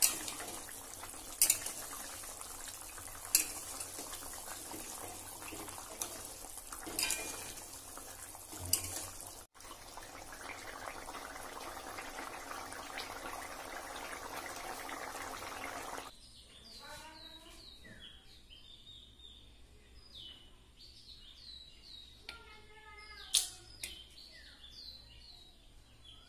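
Curry boiling in an aluminium pot with a steady bubbling hiss, while a stirring utensil knocks against the pot half a dozen times. About two-thirds of the way through the bubbling gives way to birds chirping, with many short, high calls.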